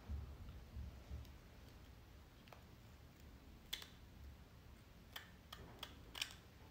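Small scissors snipping through the lace front of a human-hair wig: faint, scattered clicks, most of them in the second half.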